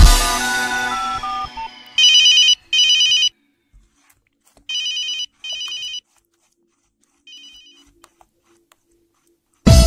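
A telephone ringtone sounding in pairs of short rings, each about half a second: three pairs, each quieter than the last, the last very faint. Before the rings, background music ends on a fading chord.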